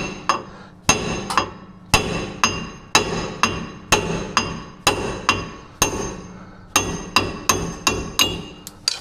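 A hammer striking the end of a wheel stud in a 2018 Chevrolet Colorado's rear wheel hub, about two blows a second, each blow ringing metallically. The old pressed-in stud is being driven out of the hub flange.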